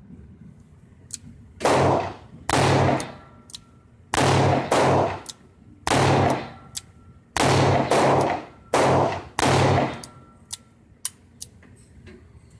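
Rossi M88 .38 Special snub-nose revolver fired in a string of loud shots, some in quick pairs, each with a short ringing tail. Faint light clicks sound between the shots.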